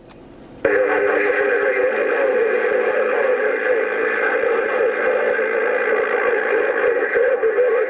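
A distant station's reply coming in over an HR-2510 radio's speaker, the voice buried in heavy static and warbling so that no words come through. It starts suddenly about half a second in after a brief hush, and runs on at a steady level.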